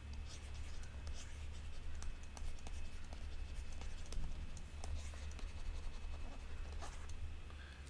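Stylus scratching and tapping on a pen tablet in a run of quick, irregular handwriting strokes, over a steady low electrical hum.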